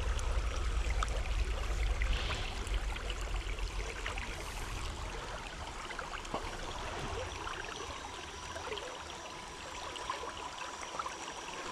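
A small creek running steadily. A low rumble in the first few seconds fades out, and small clicks are scattered through.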